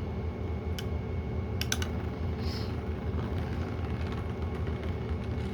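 Beyblade spinning tops whirring steadily in a plastic stadium, one of them a 3D-printed Beyblade. There are a few sharp clicks of contact about a second in and again near two seconds.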